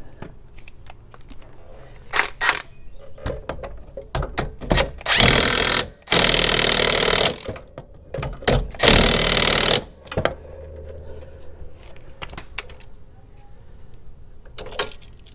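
Cordless impact wrench hammering in three main bursts of about a second each, running the 24 mm nut onto the rear shock's lower mounting bolt. Scattered clinks of tools being handled come before and after.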